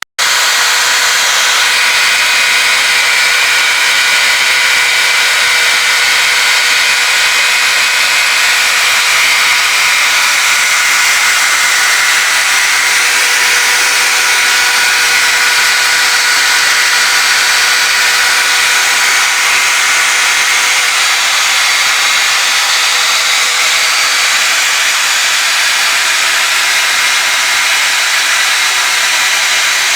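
Homemade lathe running steadily: a motor whine with constant tones over a loud, even hiss.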